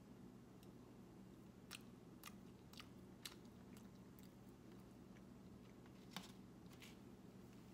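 Faint chewing of a forkful of cooked mullet: a few soft, scattered mouth clicks over a low steady hum of room tone.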